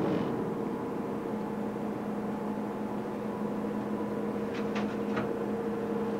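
Steady hum of the vessel's engine or onboard machinery running, with two held tones under it, and a few light clicks about four and a half to five seconds in.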